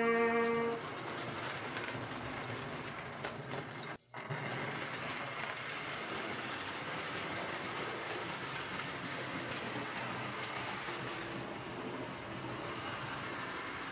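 American Flyer S-gauge model train running on its track: a steady whirring rumble with light clicking from the wheels over the rail joints. A held trumpet note fades out in the first second, and the sound drops out for a moment about four seconds in.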